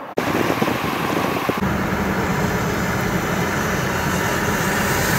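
Steady, loud outdoor noise with a low engine hum, as from a vehicle running close by; it starts suddenly just after the start.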